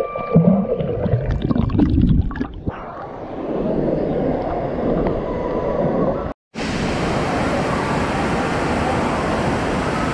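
Pool water heard through an underwater microphone: bubbles and muffled gurgling for the first couple of seconds, then a dull, muffled wash of water. After a brief dropout about six seconds in, a steady, echoing din of splashing and rushing water in the indoor water-park pool.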